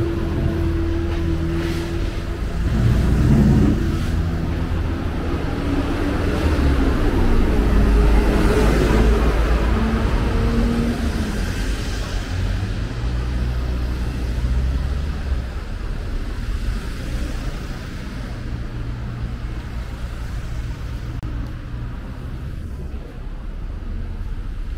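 City street traffic: motor vehicles running and passing close by, with engine tones that rise and fall. It is loudest about eight seconds in and eases off near the end.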